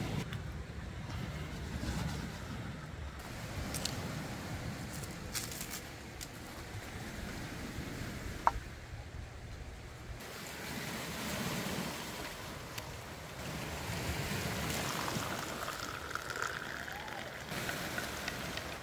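Sea waves washing on the shore, swelling and easing, with wind buffeting the microphone. A few light clicks, and one sharp click about halfway through.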